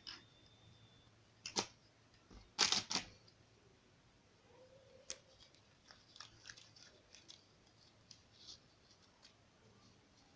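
Hands working on an expandable garden hose and its plastic fittings: a sharp click about a second and a half in, a louder crunchy snip-like double sound around three seconds, then a run of small clicks and rustles.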